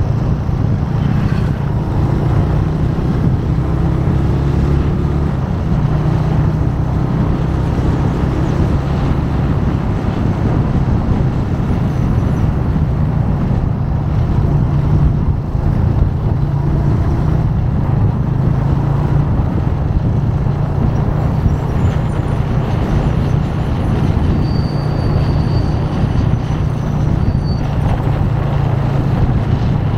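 Motorcycle engine running steadily at cruising speed, heard from the rider's seat, with road and wind noise.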